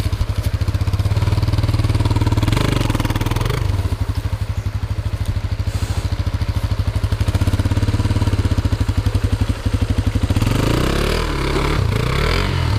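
Enduro motorcycle engine running steadily under way. From about ten seconds in, its pitch rises and falls repeatedly as the throttle is worked.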